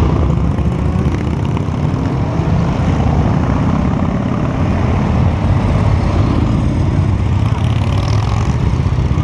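Motorcycle engines running as a line of motorcycles, cruisers, touring bikes and sportbikes among them, rolls slowly past one after another, over a steady low engine rumble close by. An engine note rises near the end.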